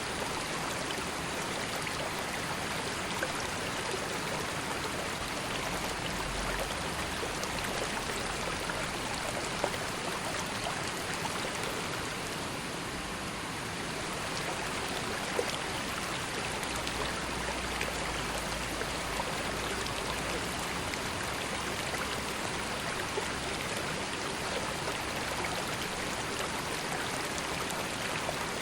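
A calm river flowing: a steady, even rush of water with occasional small splashes and drips.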